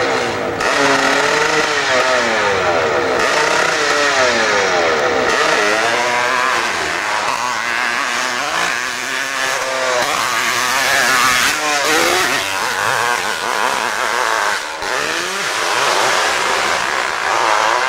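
Pro hillclimb motorcycle engine at full throttle up a steep dirt hill, its pitch swinging up and down again and again as the throttle is worked.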